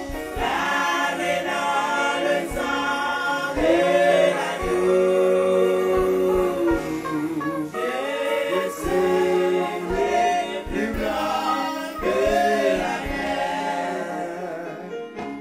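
Choir singing a gospel hymn, with held sung notes changing every second or so.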